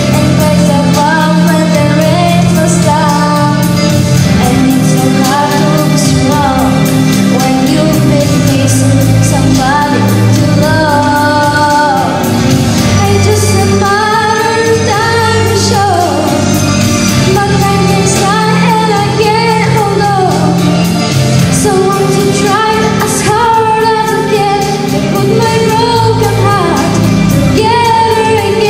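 A young girl singing a song into a handheld microphone, amplified, over instrumental accompaniment with a steady beat.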